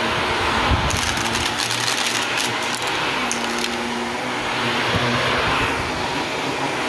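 Shark Navigator Lift-Away Deluxe upright vacuum running steadily on a rug, with a quick burst of sharp clicks and rattles from about one to two and a half seconds in.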